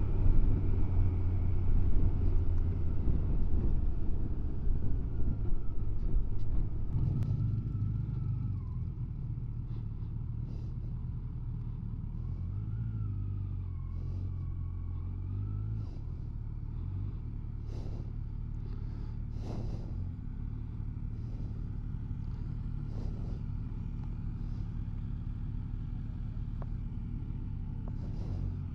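Kawasaki Versys 1000 SE motorcycle's inline-four engine and wind rush while riding. The sound drops markedly about seven seconds in as the bike slows, leaving a steady low engine hum at low speed with a few faint clicks.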